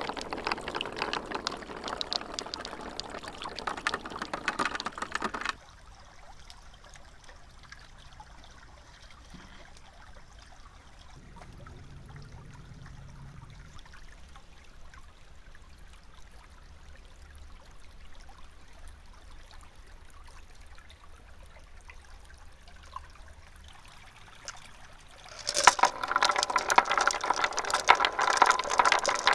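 Marbles rolling and clattering down a plastic marble run track, a dense rattle for the first five seconds or so, then a long quiet stretch with only a faint low hum. Near the end the clatter starts again, louder, with ringing tones mixed in.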